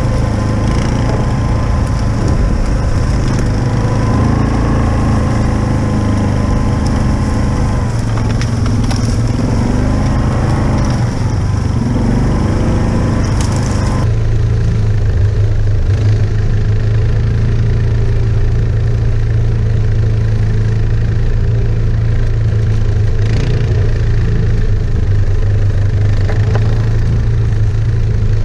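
ATV engines running on a wooded trail. For the first half the engine pitch rises and falls as the throttle varies. About halfway through the sound changes abruptly to a steadier, deeper engine note.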